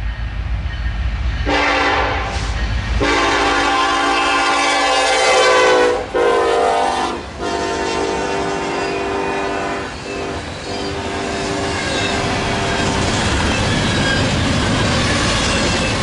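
Freight train led by an EMD SD70ACe locomotive sounding its horn in several blasts as it approaches and passes, the pitch dropping as it goes by about six seconds in. The horn stops about ten seconds in, and the double-stack intermodal cars roll past with a steady rumble and clicking of wheels on the rails.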